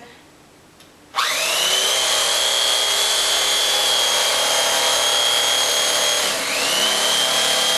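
Electric knife switched on about a second in, its motor whine rising as it spins up and then running steadily and loud as the reciprocating blades cut into thick upholstery foam. Late on the pitch dips briefly and climbs back.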